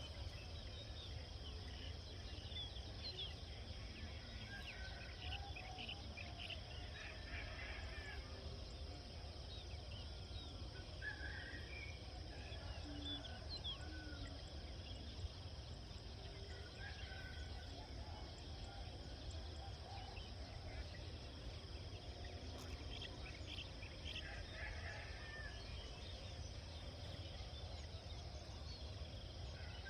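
Countryside ambience: scattered bird calls and chirps throughout, over a steady low rumble and a constant high-pitched hum.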